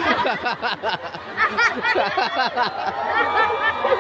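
A large audience laughing, many voices overlapping, with a burst of rhythmic laughter about a second and a half in.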